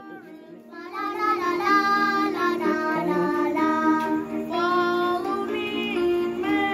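Children caroling: young voices singing a Christmas carol over backing music, coming in about a second in.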